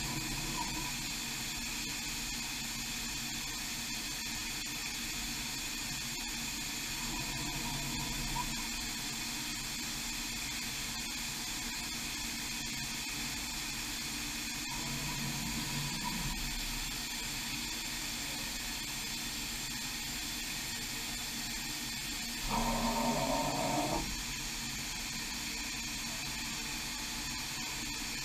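Huron KX30 five-axis machining centre moving its rotary table and tilting axis during an RTCP pivot-point setting cycle: a steady hiss with short hums from the axis drives. The loudest move, about three-quarters of the way through, lasts a second and a half and rises in pitch.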